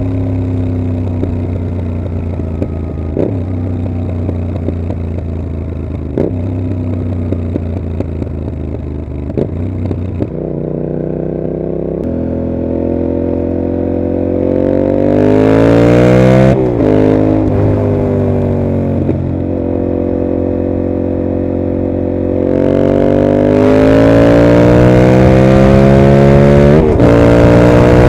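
2021 Yamaha MT-07's 689 cc parallel-twin engine through a Mivv GP slip-on exhaust, ridden: for the first ten seconds it runs with its pitch sinking slowly and a sharp crack about every three seconds, then it accelerates hard, the revs climbing and dropping suddenly at each upshift several times.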